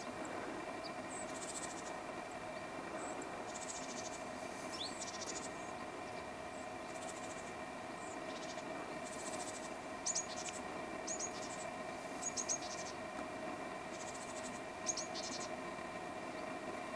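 Meadow ambience: recurring bursts of high-pitched insect chirring over a faint steady hum, with a few short, sharp high chirps from about ten seconds in.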